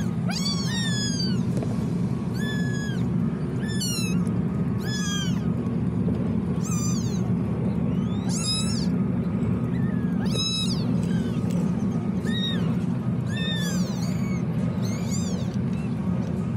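Young kittens mewing repeatedly, high thin cries that rise and fall in pitch, roughly one a second, over a steady low hum.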